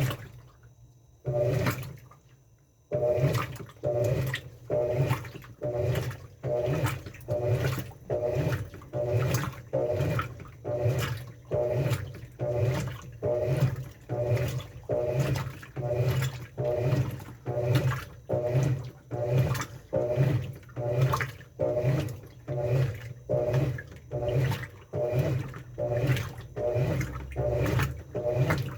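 Top-load washing machine with a central agitator agitating: water sloshes back and forth in even strokes, about one and a half a second, over the pulsing hum of the motor. The strokes start about three seconds in, after a short pause.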